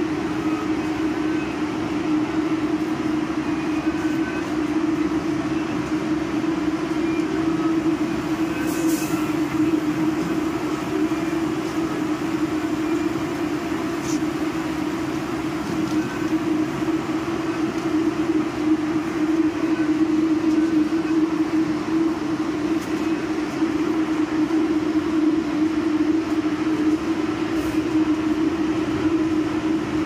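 MBTA Red Line subway train running: a steady rumble with a constant hum.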